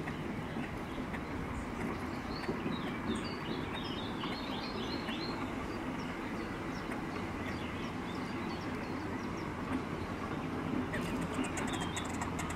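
Steady low outdoor rumble with small birds chirping through it, a quick run of chirps between about two and five seconds in; near the end a rapid fine clicking starts.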